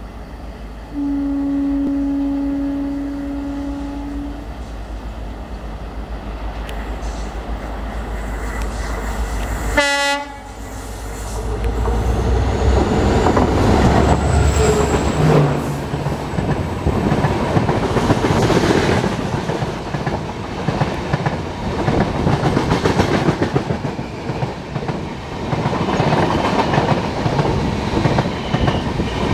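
Locomotive horn sounding one long steady blast about a second in. Then a passenger express passes close by at speed: loud rumbling wheels and the rapid clickety-clack of the coaches over the rail joints.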